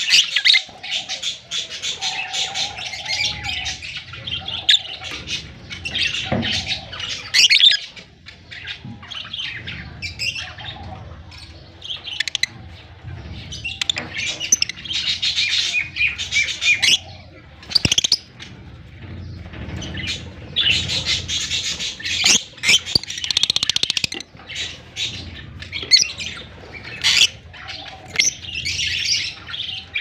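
Lovebirds chattering and chirping: a dense run of shrill, high chirps and squawks with short lulls.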